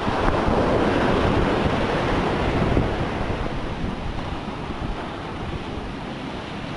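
Storm surf at high tide breaking and washing up the beach, with wind buffeting the microphone. The wash is loudest in the first couple of seconds and eases off gradually.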